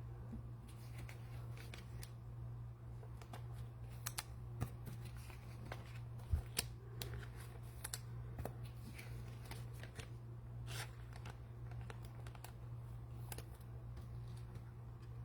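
Trading cards being handled and flipped through, with scattered light clicks and soft rustles over a steady low hum.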